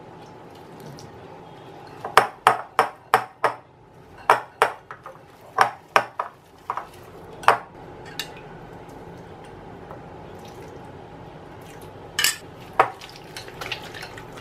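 A steel spoon and a wire balloon whisk clinking against a glass mixing bowl and a ceramic bowl as warm water is spooned into a ghee-and-flour batter. A run of sharp clinks starts about two seconds in, stops about halfway, and then two more clinks lead into quick whisking near the end.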